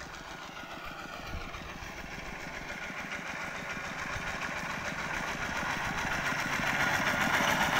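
Two-wheel walking tractor's single-cylinder diesel engine running as the tractor, pulling a trailer, approaches along a dirt track, growing steadily louder.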